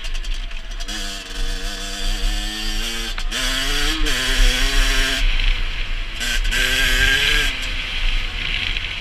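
Rieju MRT SM supermoto engine revving under throttle. Its pitch climbs, drops briefly about three seconds in, about four seconds in and again around six seconds, then climbs again.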